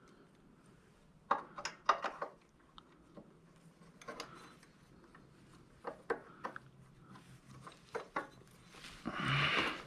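Metal parts clinking and tapping as a steel pivot pin is worked into a motorcycle foot peg and its bracket against spring pressure: irregular sharp clicks, several close together about 1.5 to 2 seconds in and again around 4 to 8 seconds. A brief louder noise comes near the end.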